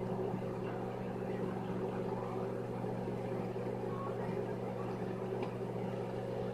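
Microwave oven running with an egg in water inside: a steady electrical hum with a fan whir, unchanging throughout.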